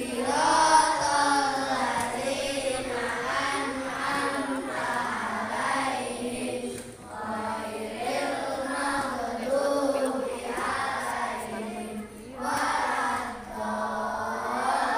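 A large group of children singing together in unison, in phrases with short breaks between them.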